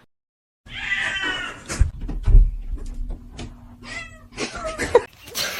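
A cat meowing several times in short calls, with two low thuds about two seconds in.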